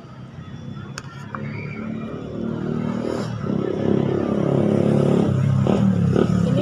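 A motor vehicle's engine passing on the road, growing steadily louder as it approaches. A light click comes about a second in.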